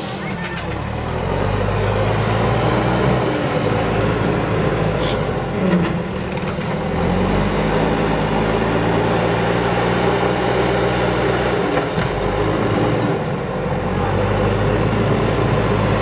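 JCB 3DX backhoe loader's diesel engine working under load as the front bucket pushes soil, revving up to a higher steady pitch about six seconds in, with a dip near thirteen seconds.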